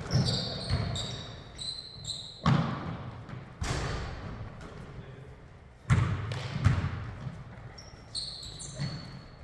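A basketball bouncing on a hardwood gym floor, with a thud every second or two that rings on in the hall. Short sneaker squeaks come near the start and again near the end.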